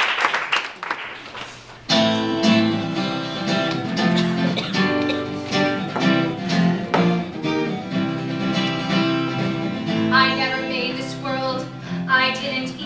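Applause dies away, then about two seconds in a live band starts a song's instrumental intro, with sustained chords and a plucked-string sound. Near the end a woman's singing voice comes in over the band.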